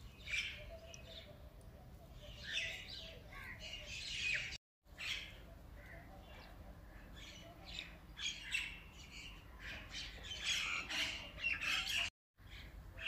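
Birds chirping and squawking in short, irregular calls, some gliding down in pitch.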